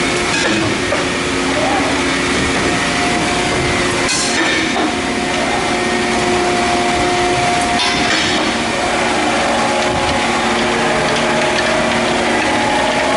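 Sunrise CNC plate shearing and punching machine running: a steady mechanical drone with several held tones, and two short hissing bursts about four and eight seconds in.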